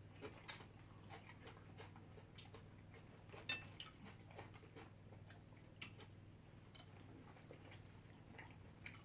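Faint scattered clinks of cutlery on plates and chewing during fast eating of rice and fish, over a low steady hum; the sharpest clink comes about three and a half seconds in.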